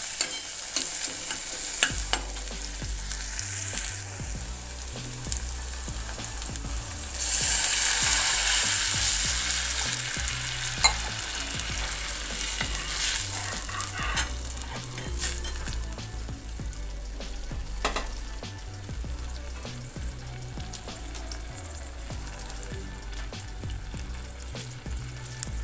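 Chopped onion, green chilli and tomato sizzling in oil in a metal kadhai while a metal ladle stirs and scrapes. About seven seconds in, water is poured into the hot pan and it hisses loudly. The hiss then dies down to a quieter simmer of the watery mix, with occasional ladle clinks.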